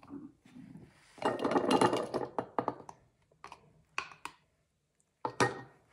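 Red plastic measuring cup tapped and shaken against a plastic funnel set in a glass mason jar to empty out flour: a burst of rapid rattling clicks, then a few separate knocks, the loudest near the end.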